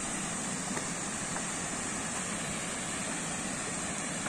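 Steady rushing of a river flowing over a stony bed, an even wash of water noise.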